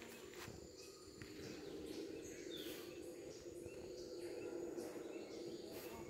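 Tropical forest ambience: scattered short bird chirps and calls over a steady high insect whine, with a steady low hum underneath.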